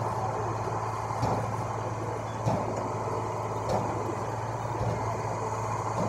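Diesel engine of a rail track-laying machine running with a steady low hum, with a short knock about every second and a bit.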